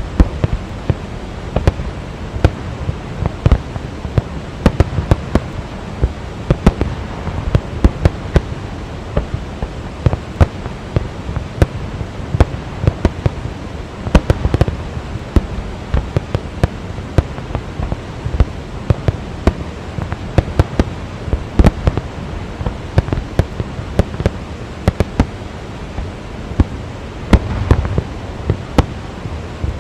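Fireworks display: a dense, continuous barrage of sharp bangs and crackles, several a second, over a steady rushing noise.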